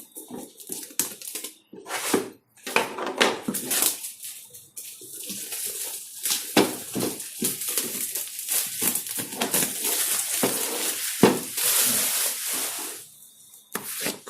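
Packaging being handled and worked open by hand: a run of clicks, knocks and scrapes, with a long stretch of continuous rustling in the middle.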